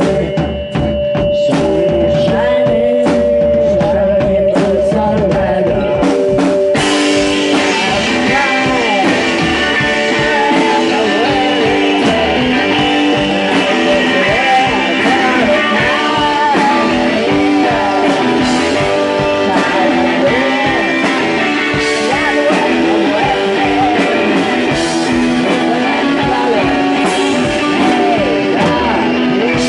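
A rock band playing live, with electric guitar. For the first six seconds a single wavering note is held over the band, then about six seconds in the sound fills out into the full band with bending, wailing guitar lines.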